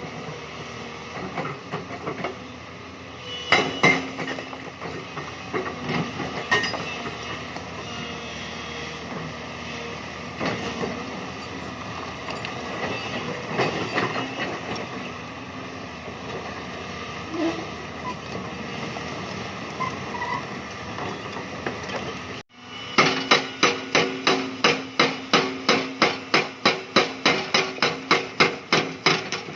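Hyundai crawler excavator working in limestone: the diesel engine runs steadily under load with scattered scrapes and knocks of rock. After a sudden break about 22 seconds in, loud regular hammering follows at about three blows a second.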